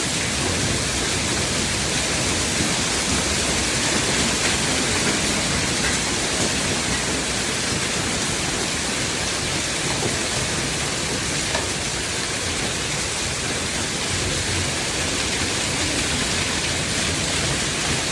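Hailstorm: hail and rain pelting down in a steady, dense rush of noise.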